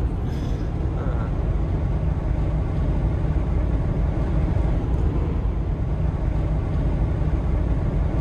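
Road and engine noise heard inside a Ford F-150 pickup's cab while driving: a steady low rumble.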